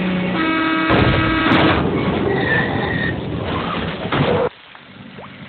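A vehicle horn holding a steady chord, stopping about a second in, then a loud rushing vehicle rumble that cuts off abruptly near the end, leaving a much quieter background.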